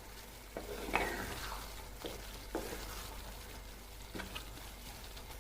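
Stirring a simmering curry in a cooking pot: a handful of short knocks and scrapes of the utensil against the pan, the loudest about a second in, over a faint sizzle.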